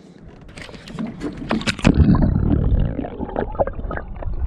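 Water splashing as a smallmouth bass is let go over the side of a boat and the microphone plunges under the surface, then muffled underwater sloshing and bubbling, loud and low, with the higher sounds cut off.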